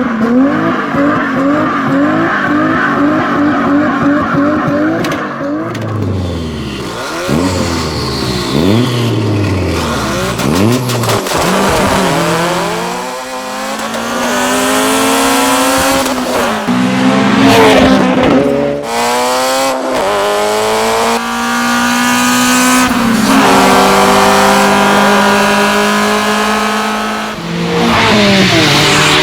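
Dubbed race-car engine sound effects: engines revving, then several cars sweeping past falling in pitch, then repeated rising runs through the gears, with tire squeal.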